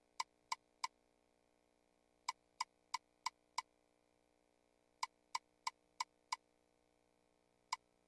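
Video slot machine reel-stop clicks: short, sharp ticks in quick runs of five, about three a second, one per reel as the five reels land one after another, with a new run starting every few seconds as the game spins again.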